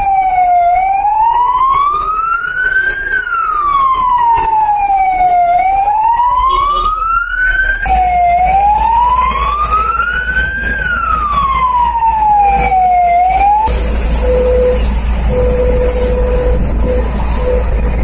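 Fire engine siren wailing, rising and falling slowly, about two and a half seconds each way. About fourteen seconds in it breaks off and a loud steady rushing noise takes over.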